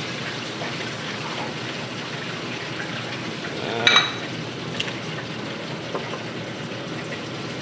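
Steady sizzling hiss of hot cooking oil, with a single light clink about four seconds in.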